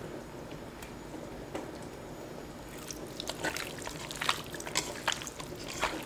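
Hands mixing and kneading pork rib pieces with a wet minced-garlic marinade in a stainless steel bowl: a few faint taps at first, then from about three seconds in a busy run of wet squishing and slapping.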